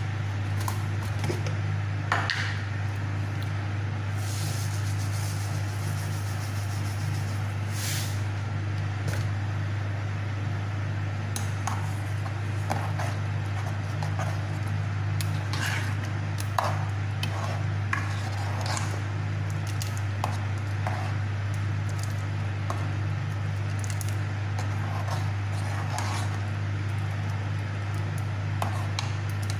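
A steady low hum throughout, with scattered light clicks and scrapes of a ladle stirring in a metal cooking pot of simmering bilo-bilo.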